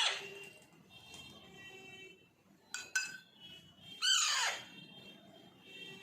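Baby parrot calling: a call falling in pitch that fades out at the very start, and one more falling call about four seconds in. Two short clicks come just before the second call.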